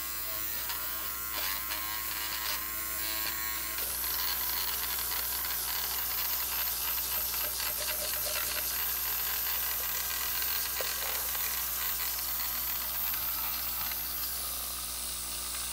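Battery-operated aquarium gravel siphon (KollerCraft TOM Mr. Cleaner) running with a steady small-motor buzz while held in the tank water, having lost its vacuum and being jiggled to get it drawing again. A rougher hissing of water and air joins the buzz about four seconds in.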